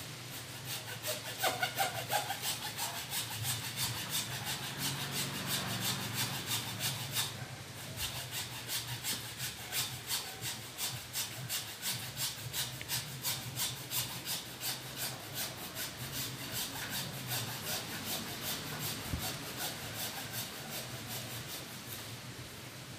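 Hand hacksaw cutting through the woody stem of a mulberry plant, in steady back-and-forth strokes at about three a second, with a brief pause about seven seconds in.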